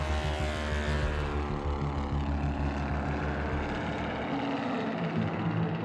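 Propeller airplane's piston engine droning steadily, its pitch falling slowly as it passes; the deepest part of the drone fades about four seconds in.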